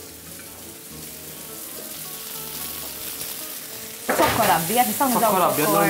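Food sizzling softly in a frying pan on a gas burner. From about four seconds in, a voice comes in loudly over the sizzle.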